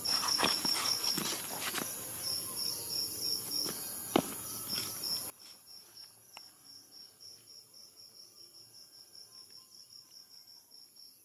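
Crickets chirping steadily at about five chirps a second, with a few sharp knocks in the first five seconds, the loudest about four seconds in. The background hiss drops away suddenly a little after five seconds, leaving only the crickets, fainter.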